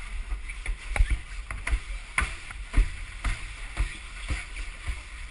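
A person crawling through a ribbed pipe, their body knocking and scraping against the pipe wall in a string of irregular thumps, about two a second.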